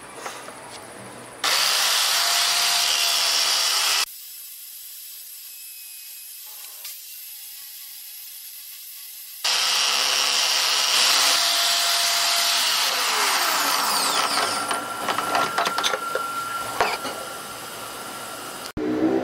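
Motor-driven wooden roller being sanded true with an 80-grit sandpaper block held against it as it spins: a loud, harsh, rasping hiss in two long spells, with the quieter motor hum between them. Partway through the second spell a whine glides down in pitch.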